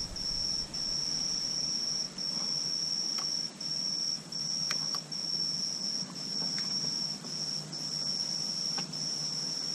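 A cricket trilling steadily in one high, unchanging pitch, with short breaks about once a second. A few faint clicks of small handling sound over it.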